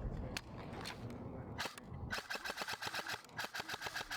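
Airsoft guns firing: a couple of single shots, then from about two seconds in, rapid full-auto bursts of about a dozen shots a second, broken by a short pause.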